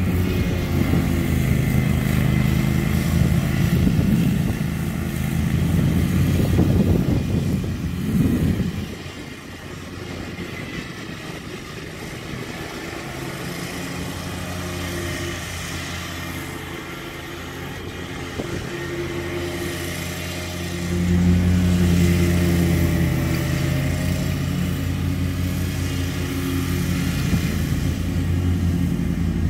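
Large riding lawn mower's engine running as it cuts grass, a steady engine note. It is louder at first, drops off sharply about eight seconds in, and grows loud again about twenty seconds in.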